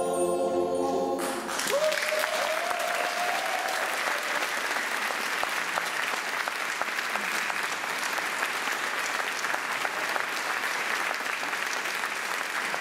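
A choir with keyboard holds its final chord, which cuts off within the first second or two. Audience applause then breaks out and goes on steadily, with a single rising call from a voice as the clapping starts.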